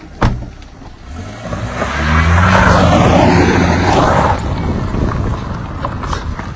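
A car door shuts with a sharp thud, then the car's engine revs up with a rising pitch and the car drives off, loudest two to four seconds in and easing away after.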